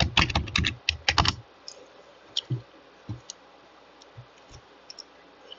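Computer keyboard being typed on: a quick run of keystrokes entering a login password over about the first second and a half, then a few scattered single clicks.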